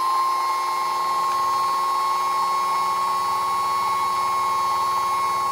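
Trim router's universal motor running at reduced speed, about 10,800 RPM, under an Arduino zero-cross phase-control speed controller: a steady high whine.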